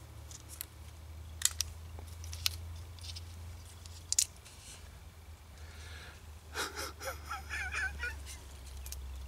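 A few sharp metallic clicks as the ring-pull of an aluminium drinks can is levered, and the tab snaps off without opening the can. About six and a half seconds in comes a short burst of exasperated, breathy vocal noise from the man holding it.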